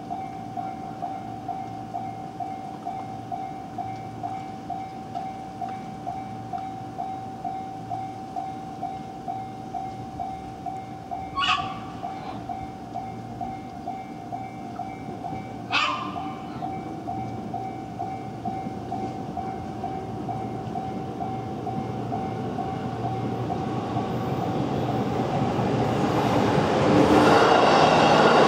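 Japanese level-crossing warning bell ringing steadily at about two strokes a second, with two brief train-horn toots about four seconds apart. An electric commuter train then approaches, its running noise rising until it is loud near the end and drowns the bell.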